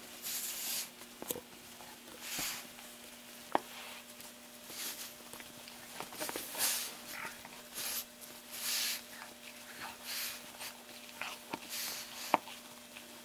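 A pug chewing and mouthing a plush squeaky toy, with noisy snuffling breaths every second or two. Two sharp clicks come about a third of the way in and near the end.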